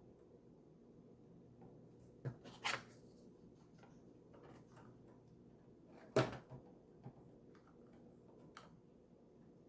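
A few light clicks and knocks of small model-kit parts being handled and pressed into place, the loudest a little after six seconds in.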